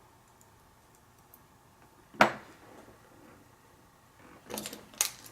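Sharp metallic clicks from a handled pin-tumbler lock: one loud click about two seconds in, then a short cluster of smaller clicks near the end, capped by another sharp click.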